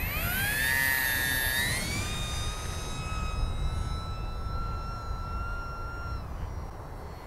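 OMP Hobby S720 foam sport plane's electric motor and propeller whining as the throttle opens for takeoff. The pitch rises quickly, steps up again, then holds steady as the plane climbs away, and drops off about six seconds in.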